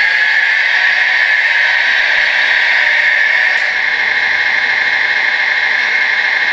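Electric drive motors and plastic gearboxes of a Bruder CAT D5G toy bulldozer converted to radio control, running in a steady high whirr as it crawls over gravel.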